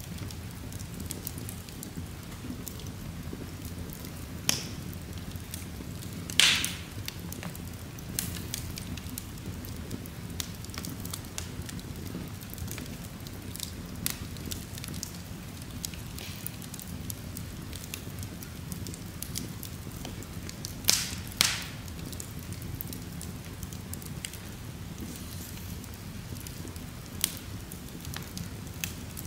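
Wood logs burning in an open fireplace: a steady low rustle of flames under scattered crackles, with a few louder pops, one about a quarter of the way in and two close together about two-thirds through.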